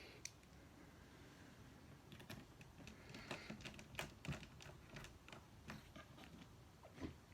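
Faint, scattered small clicks and ticks from the laptop display's small mounting screws being driven back in with a small screwdriver.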